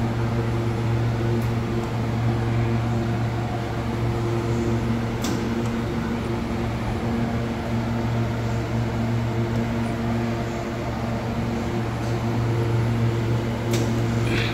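Load bank test cabinet running with a steady electrical hum and fan noise: a low pitched hum with several overtones over a noisy whoosh. Two sharp clicks, about five seconds in and near the end, as load steps are switched in.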